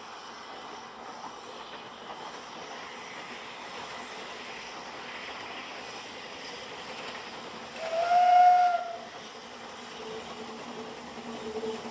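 A steam locomotive's whistle sounding one blast of about a second, a little past halfway, over faint steady background noise. The noise of the approaching train starts to grow near the end.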